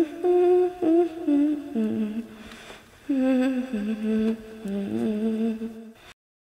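A voice humming a slow tune in held notes that step up and down, in two phrases, the second beginning about three seconds in. It cuts off abruptly near the end.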